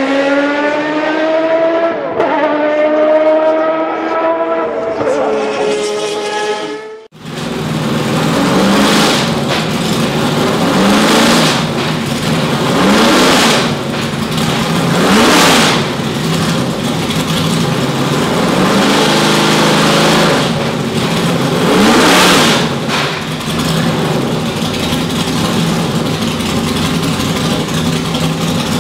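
For about the first seven seconds, a pitched intro sound of several held, slowly sliding tones, cut off suddenly. Then the Lola T70 Mk3B race car's 5.0-litre V8 runs at a loud idle and is blipped about six times, each rev rising and falling.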